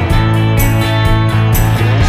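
Background rock music with a guitar and a steady beat.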